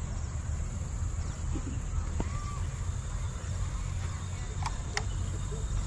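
Outdoor ambience: a steady high insect drone over a low rumble, with one short bird call about two seconds in and two faint clicks near the end.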